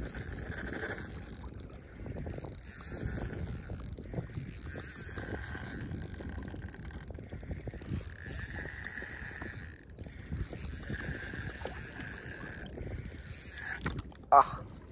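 Spinning fishing reel being cranked in repeated spells of a second or two, a whirring gear sound, as line is wound in on a light rod after a strike. A short loud sound comes near the end.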